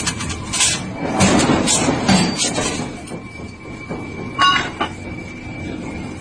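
A railway train running along the track, with irregular knocks and a thin steady squeal in the second half.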